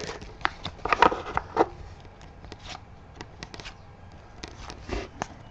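A stack of trading cards being flipped through by hand, the cards sliding and flicking against one another in quick, irregular clicks and rustles. They are busiest in the first second and a half, then thin out to scattered ticks.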